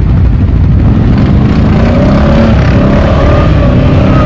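CFMoto X8 ATV's 800 cc V-twin engine running at low speed along with the engines of other ATVs, a dense rumble. About a second and a half in, a steady wavering whine joins it.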